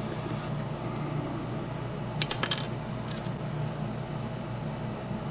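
About five small, sharp clicks in quick succession, about two seconds in: small parts of a Bachmann EM1 model locomotive being snapped into place. A steady low hum runs underneath.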